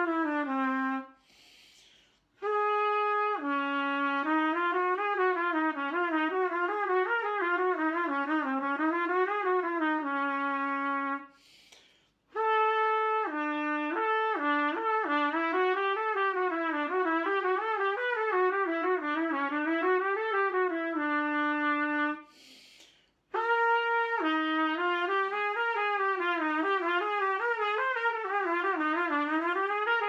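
Trumpet playing a scale exercise on the 'hee' (хи) syllable: three long phrases of quick stepwise runs winding up and down, the notes joined without gaps. A short breath is heard before each phrase.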